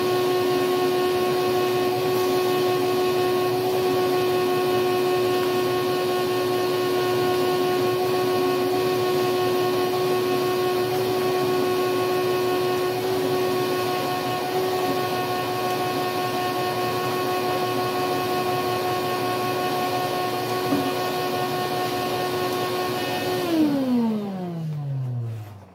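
Shop vacuum running steadily, its hose and wand drawing dust and debris out of an old truck seat's coil-spring frame. Near the end it is switched off and the motor winds down in a falling whine.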